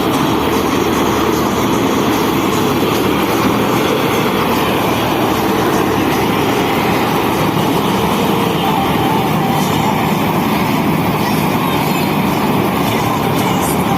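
Paddy-cutting machine (combine harvester) running steadily at work, a loud continuous mechanical din with no breaks.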